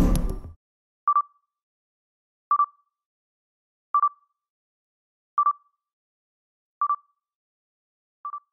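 Short electronic beeps, one steady high tone repeated six times about a second and a half apart, the last a little softer. A louder sound cuts off abruptly in the first half second.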